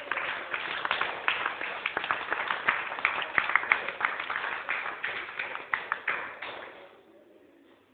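Applause from a small group of people clapping, fading out near the end.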